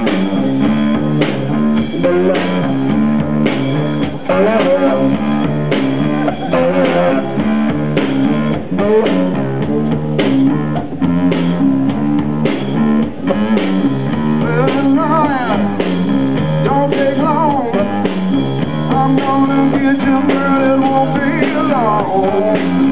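Live blues-rock played on an amplified guitar over a drum kit, with bending, wavering lead notes in the second half.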